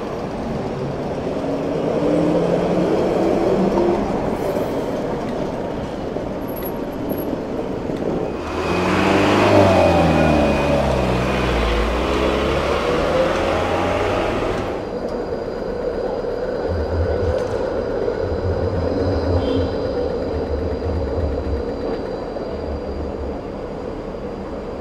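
City street traffic with trams and motor vehicles passing, engines rising in pitch as vehicles pull away. From about nine seconds in, a box truck passes close for about six seconds, the loudest sound, its diesel engine note shifting in pitch; after it, traffic continues with a steady high whine in the background.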